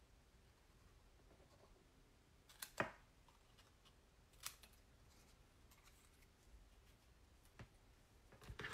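Near silence with a few faint, sharp clicks and taps of paper and small crafting tools being handled on a tabletop. The clearest click comes about three seconds in.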